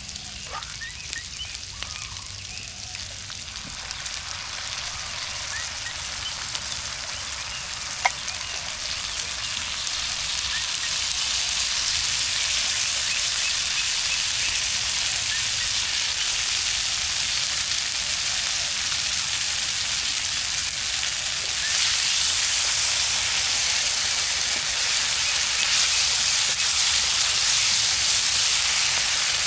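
Food frying in a pan over a campfire: a steady sizzling hiss with small crackles and one sharp pop about eight seconds in. The sizzle grows louder about ten seconds in and again near twenty-two seconds.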